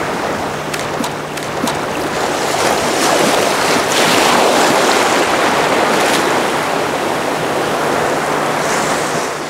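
Shallow surf washing and sloshing around a wading angler, with wind on the microphone. The rush of water swells about four seconds in.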